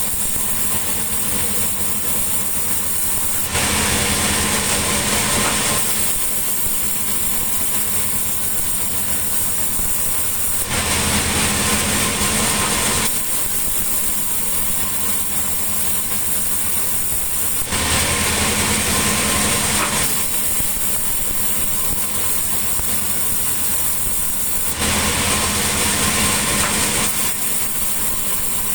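Sawmill machinery running: a steady engine hum, with a louder, hissing stretch of about two seconds coming four times, about every seven seconds, as the saw cuts through mahogany timber.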